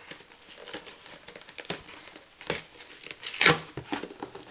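Packaging crinkling and rustling as a subscription beauty box is unwrapped and opened by hand. Irregular crackles, with a louder burst about three and a half seconds in.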